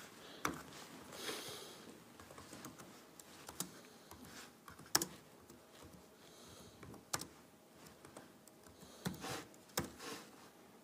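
Faint, scattered keystrokes and clicks of an HP laptop's keyboard and trackpad being typed on. A handful of sharper clicks stand out among softer ones.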